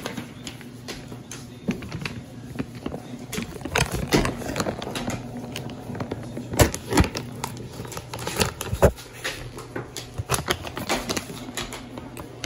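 Irregular clicks and crinkles of a dog toy's packaging being handled and pulled at while someone tries to open it, with the sharpest clicks a little past the middle, over a low steady hum.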